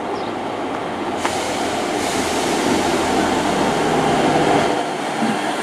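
Class 158 diesel multiple unit running into the station platform, its engines and wheels on the rails growing slowly louder. A sharp click comes about a second in, after which a steady hiss joins.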